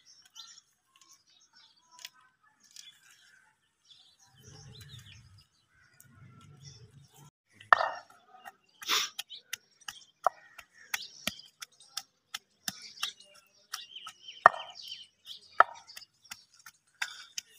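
Peeled garlic cloves being pounded with a wooden pestle in a wooden mortar: a run of sharp knocks, about two a second, starting a little before halfway through. Faint bird chirps before the pounding starts.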